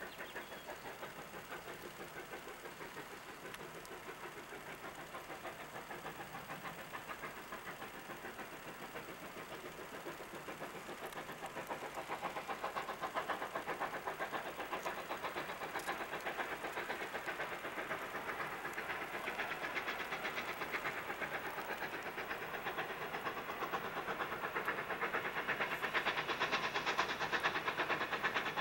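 Sierra Railway No. 28, a Baldwin 2-8-0 steam locomotive, hauling a freight train: a rapid, steady exhaust chuffing that grows louder as the locomotive approaches.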